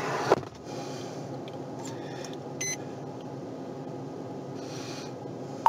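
Steady hum inside a police car's cabin, with a sharp knock just after the start and a short electronic beep about two and a half seconds in.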